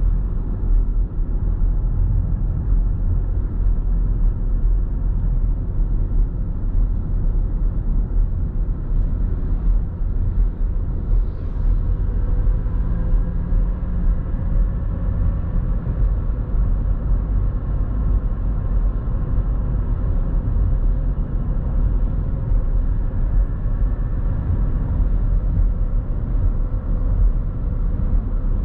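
Steady low rumble of a car being driven on the highway, heard from inside the cabin: tyre and engine noise, with a faint steady hum joining about halfway through.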